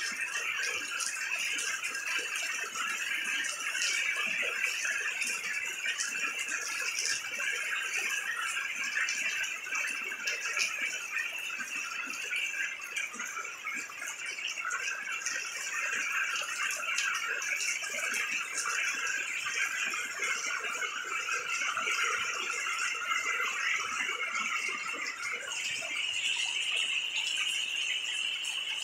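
Heavy torrential rain falling steadily: a dense, even hiss of drops with many small pattering ticks.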